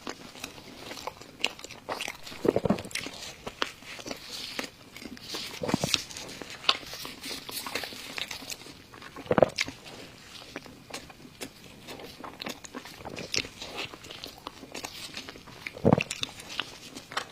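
Close-miked mouth sounds of eating: bites and chewing with crisp, crackly clicks, and a few louder bites spaced several seconds apart.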